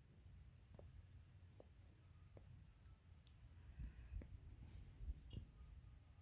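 Faint, near-silent background in which a cricket chirps in a quick, even pulse, pausing briefly midway. A few soft low thumps sound in the second half.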